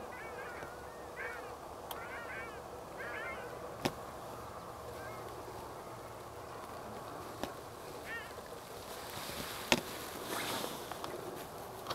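A flock of ruddy shelducks calling in flight: clusters of short, repeated calls in the first few seconds and one more about eight seconds in. A few sharp clicks, the loudest near the end, and a brief rush of noise follow.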